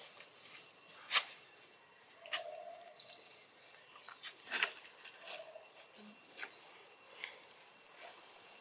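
Scattered crackles and snaps of dry leaf litter as macaques move and feed on it, with a few brief high chirps between them.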